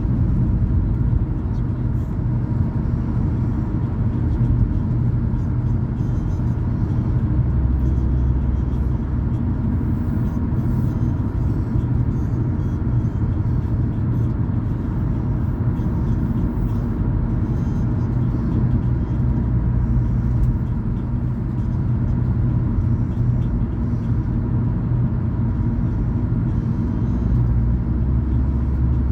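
Car driving steadily along a road: a continuous low rumble of engine and tyre noise that stays even throughout.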